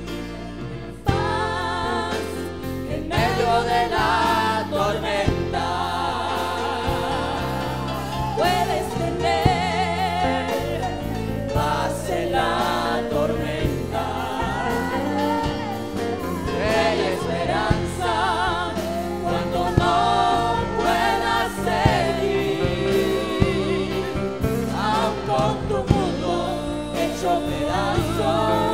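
Live Spanish-language worship song: two women singing into microphones over a band with electric guitar.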